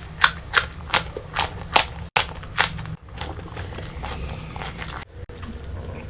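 Close-miked chewing of food: a run of sharp, crisp mouth smacks or crunches about three a second for the first three seconds, then softer, steadier chewing.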